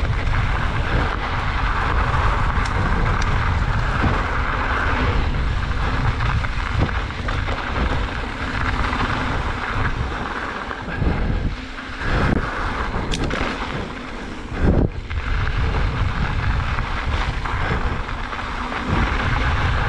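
Mountain bike riding a dirt trail: wind rushing over the microphone and steady tyre and trail noise, with a few short knocks and rattles.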